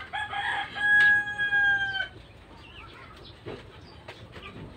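Rooster crowing once, a single long call of about two seconds near the start.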